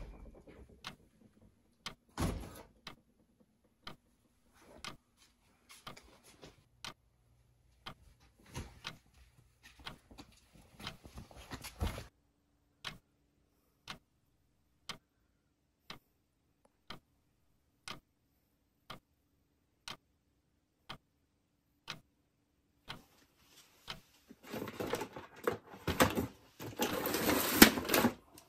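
Steady ticking, about one tick a second, the mysterious ticking with no visible source. Near the end comes a few seconds of rustling and clattering as hands dig through a cardboard box of cables and odds and ends.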